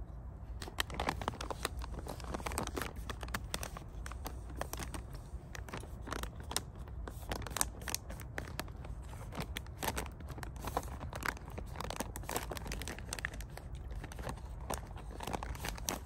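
Foil freeze-dried meal pouch crinkling and crackling as it is handled and squeezed, a steady stream of irregular crinkles.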